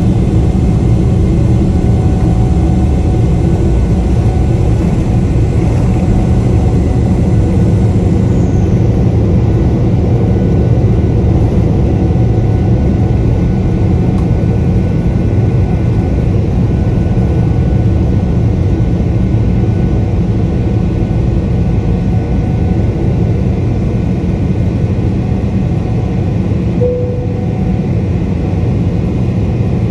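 The GE90 turbofan engines of a Boeing 777-300ER at takeoff thrust, heard from inside the cabin: a loud, steady roar through the end of the takeoff roll and the climb-out, with faint steady whining tones over it.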